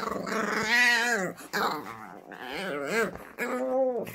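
A French Bulldog puppy, about five months old, grumbling and whining in about four drawn-out, wavering growl-whines as she plays by herself. These are playful noises, not distress.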